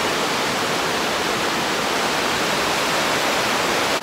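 Wide, tiered waterfall rushing steadily over rock ledges, running high and gushing after rain.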